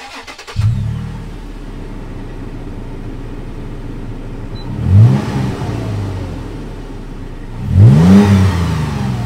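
Toyota 4Runner's 4.0 L V6 through a newly installed Borla S-Type stainless cat-back exhaust, cold-started: the starter cranks briefly, the engine catches with a surge about half a second in and settles to a steady idle. It is then revved twice, a short blip about five seconds in and a longer, louder rev near the end.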